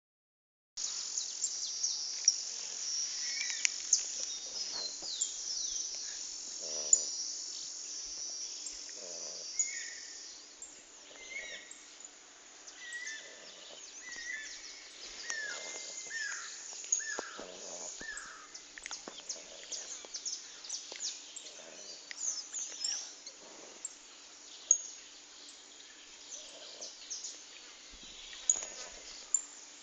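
Soft snoring, a breath about every two and a half seconds, under a steady high chirring of insects with birds calling.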